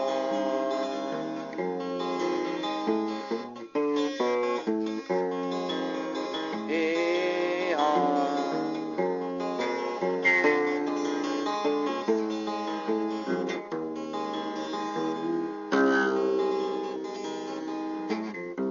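Background music led by acoustic guitar, plucked and strummed.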